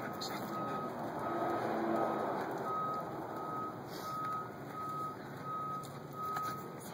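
A vehicle's reversing alarm beeping, one short steady tone about twice a second, stopping near the end.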